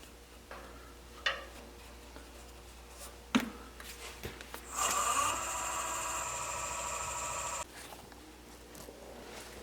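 A few sharp knocks from tools or wood being handled, then a power tool's electric motor runs steadily for about three seconds and cuts off suddenly.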